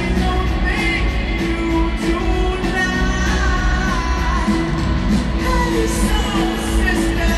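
Live pop-rock band playing, with a male lead singer over drums and bass, amplified through a stadium sound system with a steady beat.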